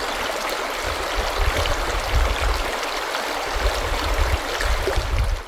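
Rushing creek water, a steady full hiss, with uneven low rumbling underneath.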